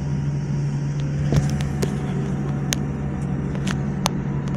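Steady low hum inside the cabin of a Boeing 787 as it taxis, with half a dozen short sharp clicks scattered through it.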